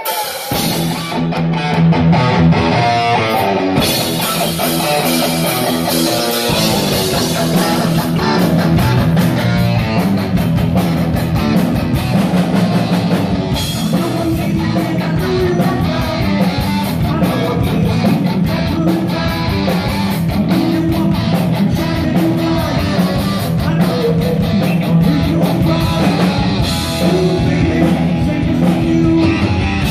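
A heavy metal band playing live: electric guitar riff over bass guitar and a drum kit, starting right at the beginning.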